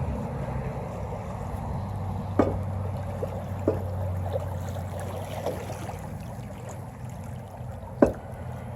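Shallow river water running and gurgling around a moving kayak, with a few sharp knocks.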